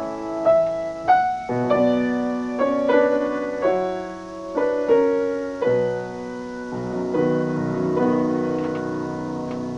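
Solo piano playing a slow piece, chords and notes struck about once or twice a second, with a last chord held and left ringing near the end.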